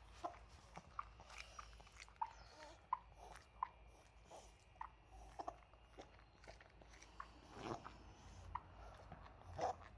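Maltese dog making faint short clicking snorts about once or twice a second, with two longer snorts in the second half: a reverse-sneezing episode, as a vet judged it.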